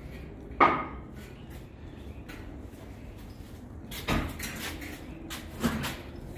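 Three short knocks or clatters over a low steady background noise: the loudest about half a second in with a brief ring, then two more at about four seconds and just before six seconds.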